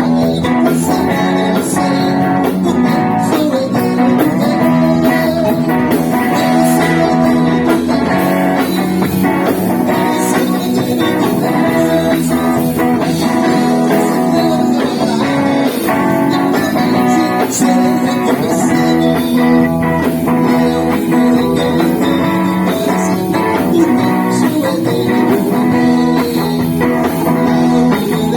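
Gospel band music with guitar to the fore, over bass guitar, keyboard and drums.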